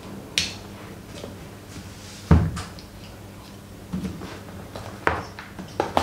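A cardboard smartphone box being handled and opened: scattered taps, scrapes and knocks, the loudest a dull thump about two seconds in.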